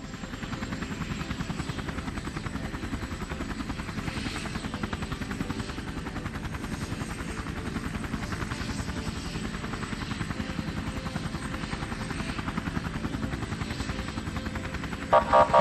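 Helicopter flying, with a steady, fast rotor chop over the engine drone. Just before the end, a brief, louder pitched sound cuts in.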